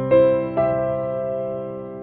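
Background keyboard music: sustained notes, one struck just after the start and another about half a second in, ringing on and slowly fading.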